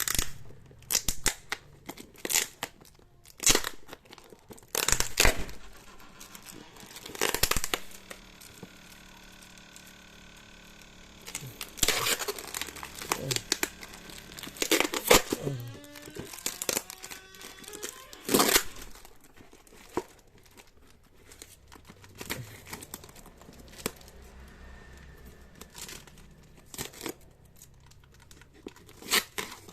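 Parcel packaging being opened by hand: plastic wrap crinkling and tearing in repeated short bursts, with a longer pitched screech about a third of the way in.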